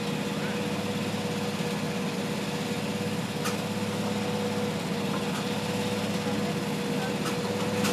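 Steady mechanical hum with a constant mid-pitched whine running underneath, and a few faint clicks.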